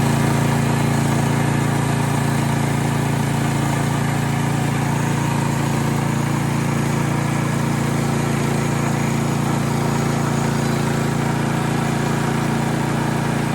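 Engine of a MechMaxx portable bandsaw sawmill running steadily at an even speed.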